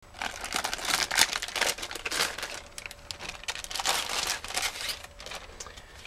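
Crinkling and crackling of plastic being handled by hand, with many small irregular crackles throughout.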